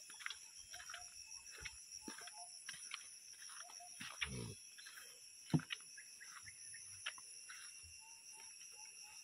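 Steady high-pitched drone of forest insects, with scattered light clicks and knocks. A sharp knock comes about five and a half seconds in, and a short low sound glides downward about four seconds in.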